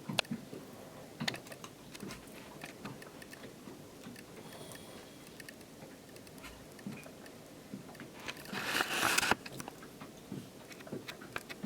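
Light clicks, taps and handling noises of small parts being worked by hand, with a louder rustle lasting about a second a little past the middle.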